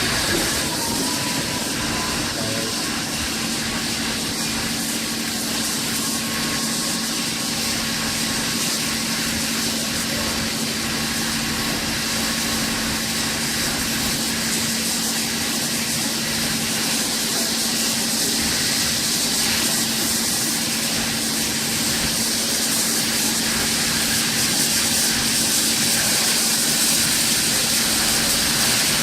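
A railway locomotive running steadily: a constant strong hiss over a steady low hum.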